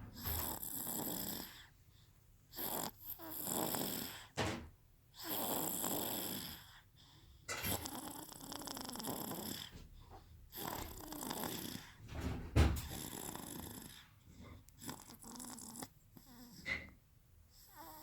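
A six-month-old baby snoring in sleep, one snoring breath every two to three seconds. A short low thump comes about two-thirds of the way through.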